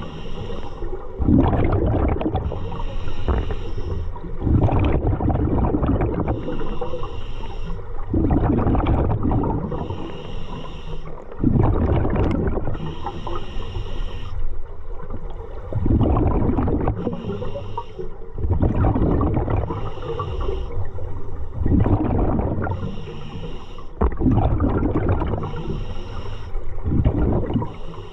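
A scuba diver breathing through a regulator underwater, in a steady cycle every three to four seconds: a hissing inhale, then a rumbling, bubbling exhale.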